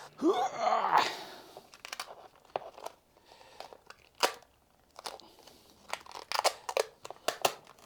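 Red chrome vinyl wrap film being lifted and pulled by hand over the edge of an acrylic piece, crinkling and crackling. The loudest stretch is in the first second, followed by scattered short crinkles and clicks.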